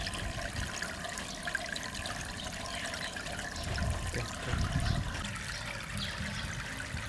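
Water trickling and splashing steadily from a miniature waterfall into a small cement goldfish pond, with a few low bumps about four to five seconds in.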